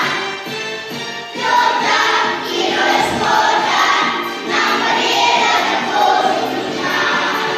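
Music: a song sung by a choir over instrumental accompaniment.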